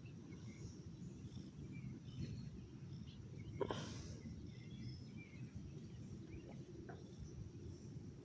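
A cat purring, a faint steady low rumble, with faint bird chirps above it and one brief sharp rustle about three and a half seconds in.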